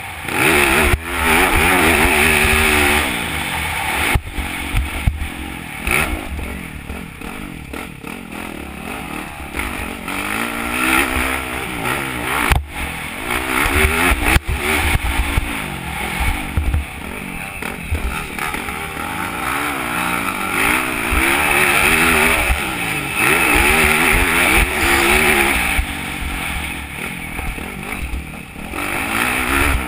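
Motocross bike engine racing hard, the revs climbing and dropping again and again as the rider goes through the gears over the track. About halfway through, two sharp knocks come a couple of seconds apart.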